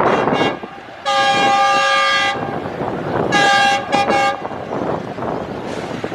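Pakistan Railways diesel locomotive's air horn: two quick toots, a long blast of over a second, then a shorter blast and two more quick toots. Wind on the microphone and train noise rush underneath throughout.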